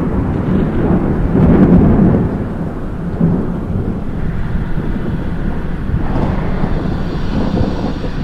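Thunderstorm sound effect: thunder rumbling, loudest about a second and a half in, over steady rain.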